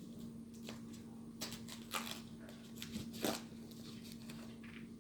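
Faint rustling and crinkling of doll packaging being handled, in short scattered strokes, the loudest about one and a half, two and three seconds in, over a steady low hum.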